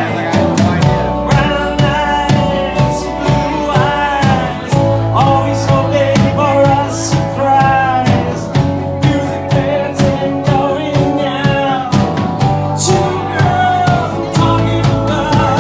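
Live band playing a country-rock song: strummed acoustic-electric guitar, electric guitars, electric bass and drum kit keeping a steady beat, with a male lead vocal.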